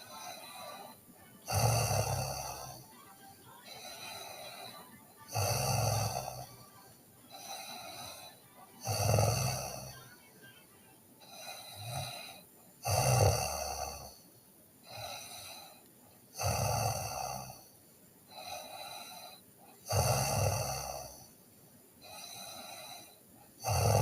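A sleeping teenage girl snoring in a steady rhythm: a loud snore about every three and a half seconds, each followed by a softer breath.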